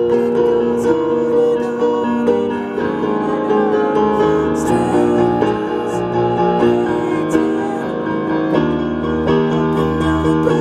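Electronic keyboard played by hand with a piano sound: held chords under a moving melody line.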